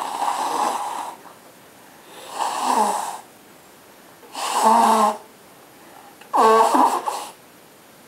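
A person blowing their nose hard into a handkerchief: four blows, each about a second long, roughly two seconds apart, with a pitched honk in each.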